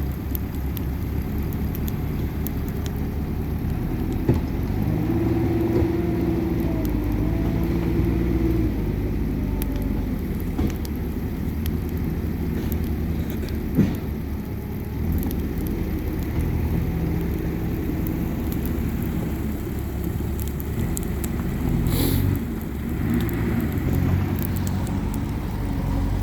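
Bonfire burning, with scattered crackles and sharp pops over a steady low rumble; a low pitched drone comes and goes alongside it.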